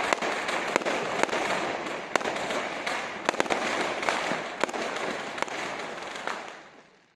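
Fireworks crackling densely, with many sharp cracks scattered through. The sound fades away near the end.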